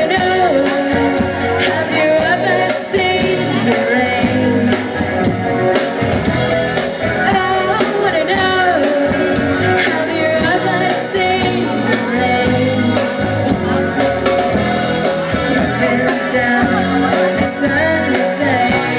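Live rock band playing loud, steady music with guitar and drums, and a voice or lead guitar carrying a wavering melody.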